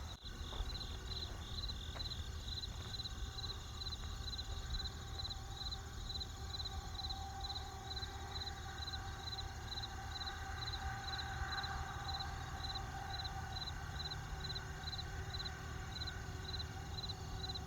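Crickets chirping steadily, about two chirps a second, over the low rumble of a campfire with a few faint crackles.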